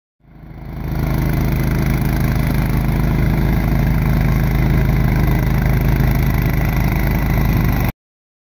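Case Ingersoll garden tractor engine running steadily while powering a front-mounted snow blower. The sound fades in over the first second and cuts off abruptly near the end.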